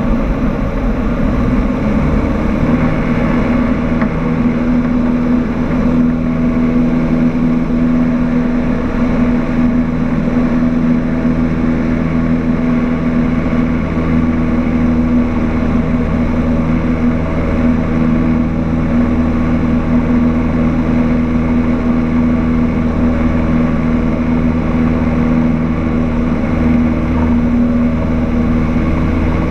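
Cessna 152's Lycoming O-235 four-cylinder piston engine and propeller running at steady power, heard inside the cabin. The engine note wavers briefly at first, then settles to a steady pitch about two seconds in.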